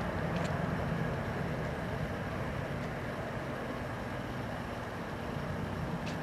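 Steady low rumble of street traffic, with two faint clicks, one just after the start and one near the end.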